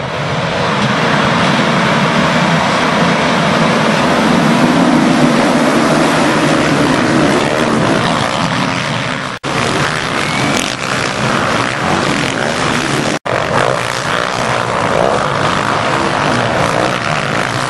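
A pack of motocross bikes racing, many engines running hard together in a loud, dense, steady din. The sound breaks off for an instant twice partway through.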